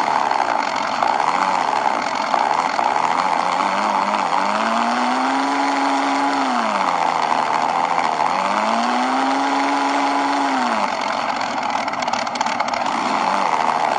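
Simulated engine sound from a miniature RC-crawler sound module played through its small speaker, idling and then revving up twice in answer to the throttle. Each rev holds for about two seconds before dropping back to idle.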